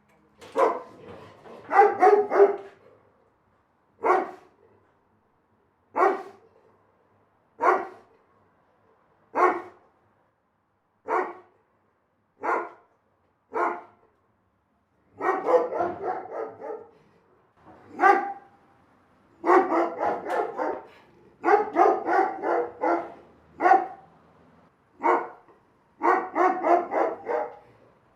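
Big dog barking: single barks every second or two, broken by several quick runs of barks in a row.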